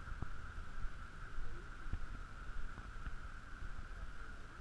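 Low wind rumble on the microphone, with a steady faint high whine underneath and a few soft scattered thumps.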